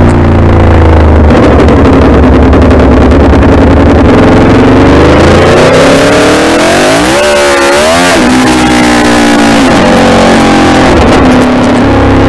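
Aprilia Tuono V4 motorcycle's V4 engine running on the move. The engine note holds steady, rises through the middle, wavers briefly, then falls back and settles again.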